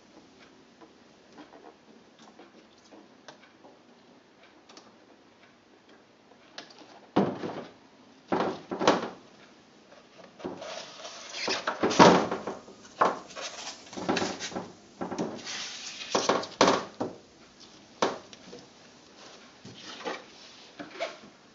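Irregular knocks, clinks and rubbing from work in an enamel steel tray: a roller is pressed over the tissue and magnets are set down on the tray. Only a few faint ticks at first, then a string of clatters from about seven seconds in.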